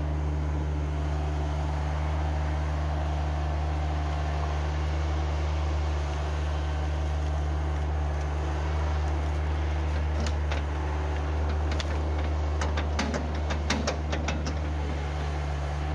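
Tractor engine running steadily at an even pitch. From about ten seconds in, a quick run of cracks and snaps as the forks drop and push a load of brush onto the fire.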